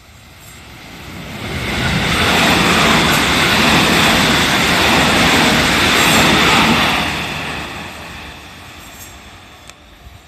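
JR 313 series electric multiple-unit train passing at speed: its wheels and running gear rise to a loud rush over about two seconds, hold for about five seconds, then fade away.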